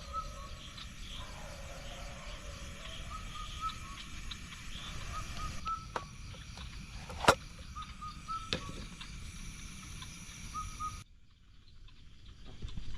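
Outdoor night ambience: short, high chirping animal calls repeating every second or two over a steady thin high-pitched insect drone and a low hiss. There is one sharp click about seven seconds in, and the sound drops away suddenly about eleven seconds in.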